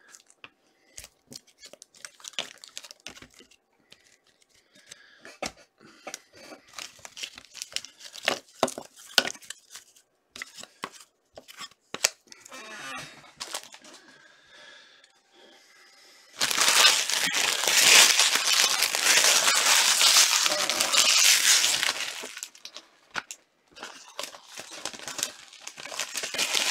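Light clicks and rustles of cards being handled, then for about five seconds, starting about two-thirds of the way in, a loud spell of wrapping being torn open and crumpled, as on a sealed trading card box or pack.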